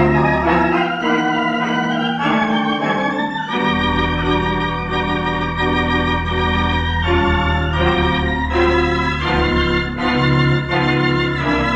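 Organ music playing sustained, slowly changing chords over a deep held bass note. The bass drops out about a second in and returns after about four seconds.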